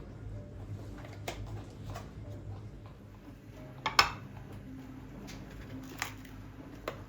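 A few light clinks and knocks of kitchen items being handled, the loudest about four seconds in.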